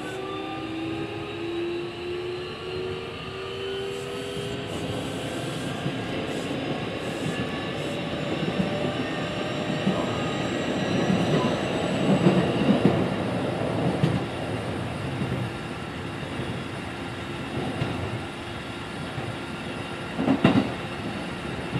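Keikyu 1500 series electric train, car DeHa 1575, heard on board: its Mitsubishi VVVF inverter and traction motors whine in several tones that rise together in pitch as the train accelerates, over the rumble of wheels on rail. The whine fades out and the wheel-and-rail noise gets louder and rougher in the middle, and a single sharp knock comes near the end.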